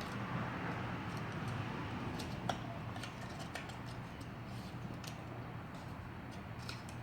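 Light scattered clicks and taps of plastic floodlight parts being handled and twisted apart, one sharper click about two and a half seconds in, over a steady low hum.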